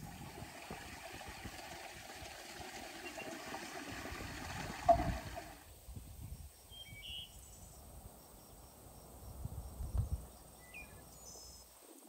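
Outdoor rural ambience: a steady rushing noise that stops abruptly about six seconds in, with a sharp knock just before it ends. Afterwards it is quieter, with a few short bird chirps and some low bumps.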